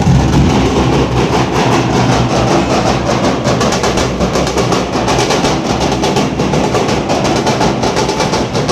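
Nashik dhol ensemble playing loud and continuous: heavy barrel-drum beats under a fast, dense rhythm of sharp strokes that grows crisper and more regular about three seconds in.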